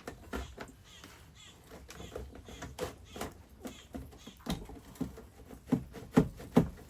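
A string of short knocks and clunks as a power converter is pushed and wiggled into its tight compartment, the unit catching on something at the back. The knocks are sparse at first and come louder and closer together near the end.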